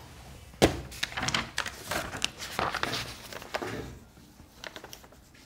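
A sharp knock about half a second in, then about three seconds of irregular rustling and clicking as a sheet of paper notes is picked up and handled; only a few faint ticks near the end.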